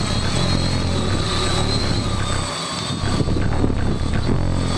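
HobbyKing X-4 fiberglass quadcopter's electric motors and propellers buzzing steadily in flight overhead.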